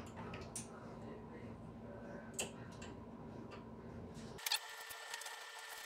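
Quiet workshop background with a few faint, light clicks and taps as small metal parts are handled. About four seconds in, the low background hum cuts out abruptly, leaving a faint steady high tone.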